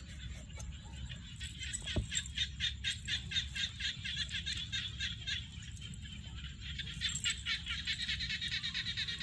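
Frogs calling in a rapid, pulsing chorus of about four or five calls a second, with a single sharp knock about two seconds in.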